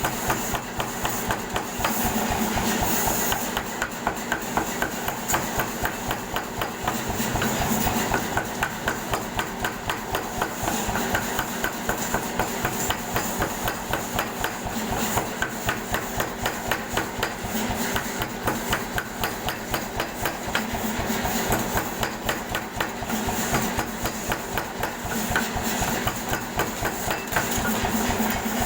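Air hammer pounding in a steady rapid rhythm of repeated strikes, several a second.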